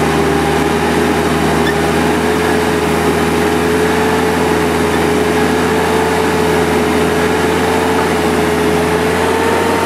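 Small truck's engine held at steady high revs as it tries to pull out of deep mud while being pushed, the pitch creeping up slightly near the end.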